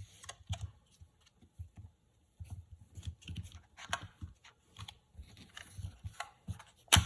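Handling sounds of a phone and a plastic screen-protector applicator tool: scattered light taps, rubs and small clicks with dull low thumps as the tool is aligned and pressed down onto the glass, and one sharp click near the end.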